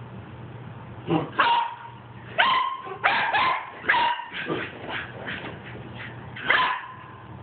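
Puppy barking in about a dozen short, high yips: one about a second in, a quick run through the middle, and a last one near the end.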